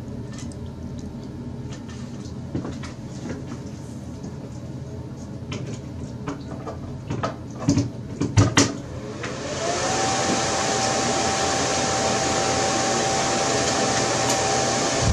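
A few clicks and knocks. Then, about nine seconds in, the dual squirrel-cage blower motor spins up with a rising whine and runs steadily: a constant hum with a strong rush of air.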